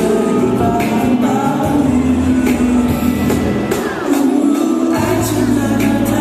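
A Mandopop ballad sung live with full instrumental accompaniment and cymbals, echoing in a large hall. The low bass drops out about four seconds in and comes back a second later.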